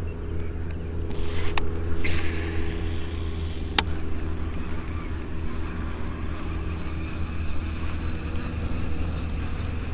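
A steady motor hum at an even pitch, with two sharp clicks about one and a half and four seconds in.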